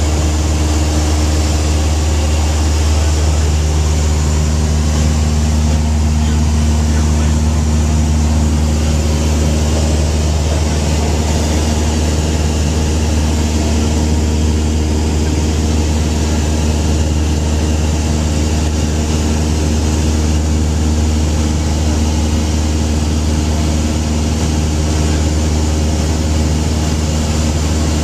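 Single-engine propeller light airplane heard from inside the cabin in flight: the piston engine and propeller running steadily as a loud, low hum with even tones, mixed with airflow noise.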